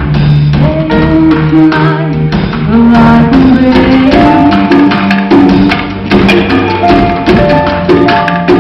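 Live band playing a song: held melody notes over steady percussion.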